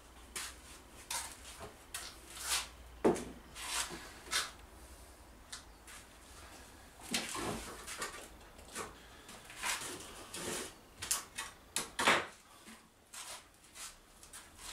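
Irregular clicks, knocks and rustling of objects being handled on a cluttered workbench, with sharper knocks about three seconds in and again about twelve seconds in.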